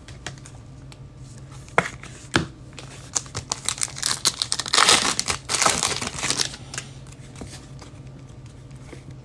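A couple of light clicks, then the plastic wrapper of a pack of football trading cards being torn open and crinkled for a few seconds in the middle.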